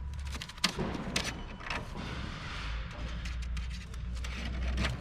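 Steel baling wire being handled on a cardboard baler, threaded through and twisted tight around the bale: three sharp metallic clicks in the first two seconds, then scraping, over a low steady rumble.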